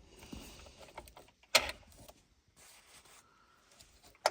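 Small car parts being handled and set down, with a sharp click about one and a half seconds in and another near the end.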